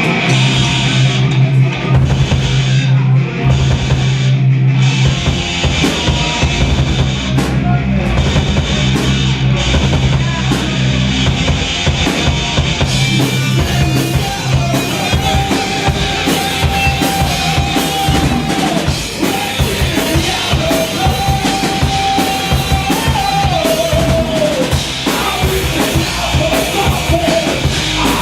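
A live stoner rock band playing loud, with the drum kit driving over bass and electric guitar. From about halfway the cymbals fill in thicker, and long held high notes ring out and bend downward.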